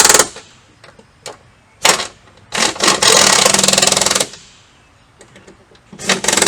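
A 3/8-inch impact wrench hammering in short bursts as it runs down the nuts on top of a strut: a brief burst about two seconds in, a longer one of about a second and a half, and another near the end.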